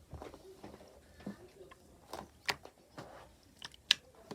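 Blue slime being pressed and poked by hand, giving irregular soft clicks and squishy crackles, with two sharper pops about two and a half and four seconds in.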